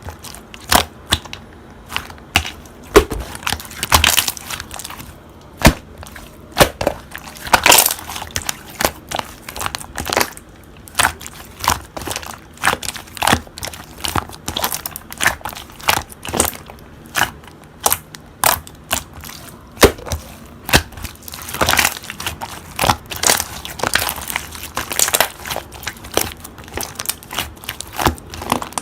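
Red clear slime being squished and pressed, giving off irregular sharp clicking pops, a few a second.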